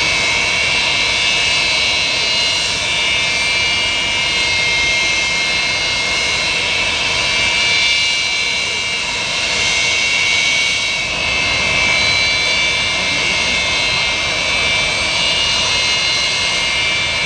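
The Antonov An-225 Mriya's six D-18T turbofan engines running on the ground as the aircraft taxis. The sound is a loud, steady jet whine, with several high-pitched tones held over a broad rush.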